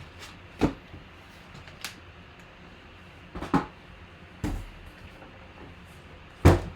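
A handful of sharp knocks and clunks of objects being handled and set down on a hard surface, the loudest near the end.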